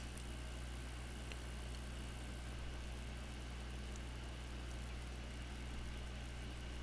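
Steady low electrical hum under a background hiss, with a couple of faint clicks of small parts and wire being handled.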